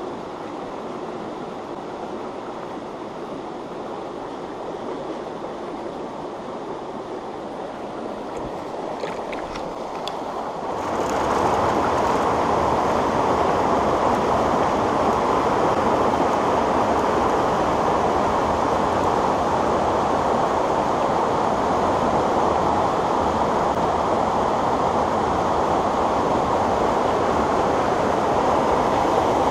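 Steady rush of a mountain stream running over rocks. About eleven seconds in, it switches abruptly to the louder rush of a small waterfall pouring into a pool.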